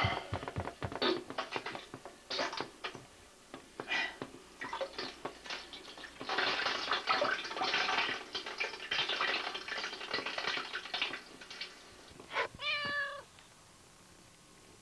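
A house cat meows once near the end, a short pitched call. Before it comes a long run of scratchy, crackling noise and clicks.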